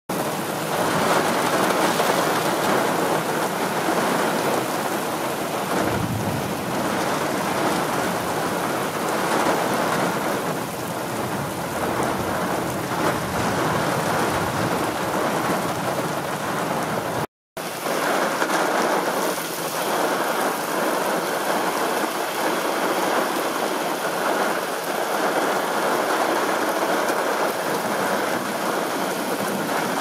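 Storm wind and heavy rain: a steady, loud rushing noise that cuts out for a moment a little past halfway.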